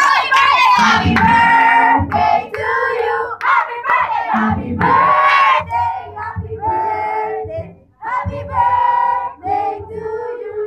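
A group of people singing together, several voices holding notes for up to about a second between short breaks.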